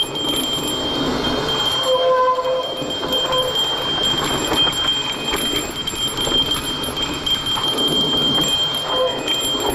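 Mountain bike rolling fast downhill on a dirt trail: tyre noise over loose dirt, the bike rattling, and wind on the handlebar camera's microphone. A steady high-pitched whine runs throughout, and there is a short squeal about two seconds in.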